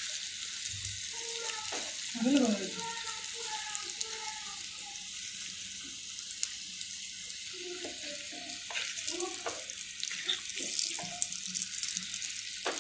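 Battered onion rings deep-frying in hot oil in a pan: a steady sizzle with scattered crackles.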